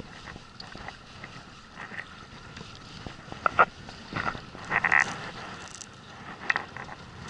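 Wind and water noise around a small inflatable boat at sea, with a few short knocks and rustles, the loudest about five seconds in.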